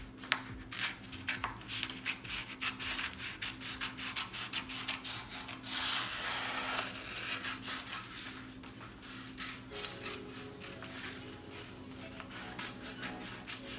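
Scissors snipping through a vinyl decal on its paper transfer sheet, a string of short cuts with the sheet rustling and sliding on the countertop, and a longer rustle about six seconds in.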